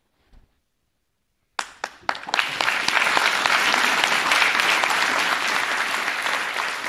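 Audience applauding: a few scattered claps about one and a half seconds in, quickly swelling into full, steady applause that starts to ease off near the end.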